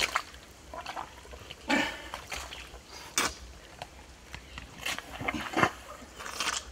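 Wet mud squelching and sucking in irregular short bursts as a hand corer is twisted and pulled up out of mangrove mud.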